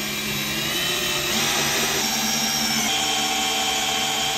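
Drill driving a long screw into a pine board, running continuously, its whine shifting in pitch twice, about a second and a half and three seconds in.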